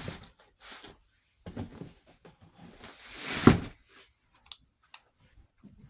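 Handling and rummaging noises: scattered rustles and knocks, the loudest a swelling rustle ending in a sharp knock about three and a half seconds in, then a single click about a second later.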